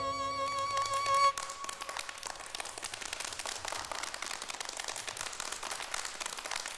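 A held musical note with a slight vibrato ends about a second in. It gives way to a group of young children clapping their hands, a dense patter of claps.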